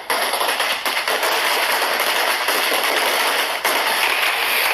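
Firecrackers going off in a rapid, unbroken run of cracks, loud and dense, with a brief dip about three and a half seconds in.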